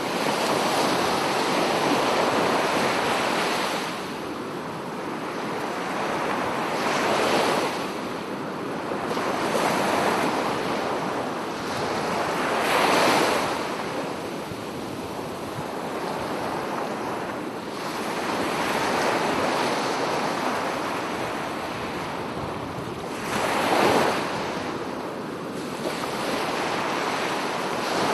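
Sea waves breaking and washing onto a beach in slow swells every few seconds, with wind on the microphone.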